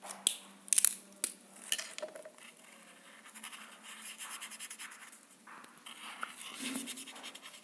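A few sharp clicks and taps from pens being handled in the first two seconds, then the tip of a felt-tip pen scratching back and forth on paper as it colours in.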